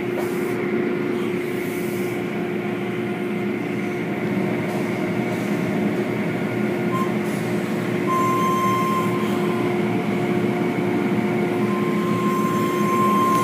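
Automatic car wash machinery running, heard from inside the car: a steady rush of spraying water and moving brushes over a constant machine hum. A higher steady whine comes in for about a second some eight seconds in, and again near the end.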